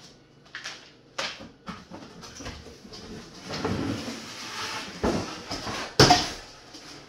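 Knocks and clatters of a Weber Smokey Joe kettle grill's parts being unboxed and handled, with a stretch of rustling in the middle. The loudest knock comes about six seconds in.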